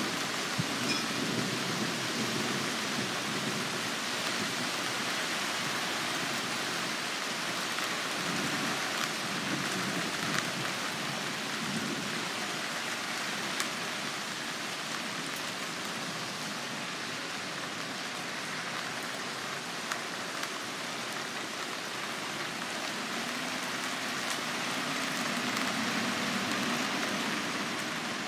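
Steady rain falling on a yard, an even, constant hiss with a few sharp single ticks now and then.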